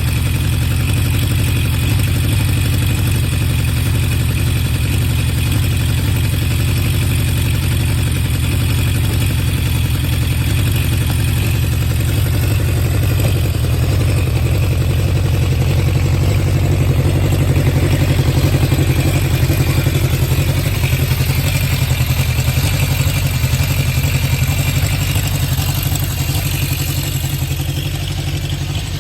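Honda CB750 Four K3's air-cooled inline-four running through HM341 mufflers with modified baffles, a steady low exhaust note that swells a little past the middle and eases off near the end. With the high float level on the number-three carburettor reset, it runs largely free of the carburettor 'sneeze' (spit-back).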